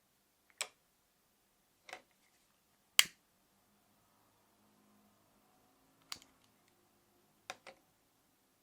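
Five sharp clicks and taps of small hard objects being handled, the third the loudest and the last a quick double tap, with a faint low hum in the middle.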